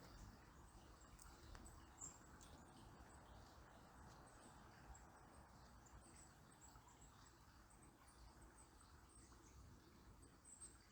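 Faint, irregular high-pitched chirps of small birds over the soft, steady hiss of a river.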